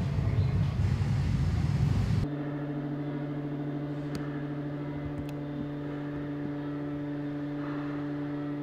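A loud, noisy low rumble for about two seconds. It cuts off abruptly and gives way to a steady electrical humming drone from old portable record players running with no records on them, with a few faint clicks.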